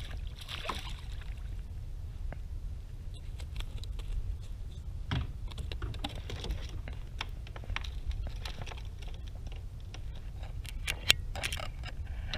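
Scattered light clicks and taps from fishing gear being handled on a kayak, over a steady low rumble. The clicks come thicker near the end, with one sharper knock about eleven seconds in.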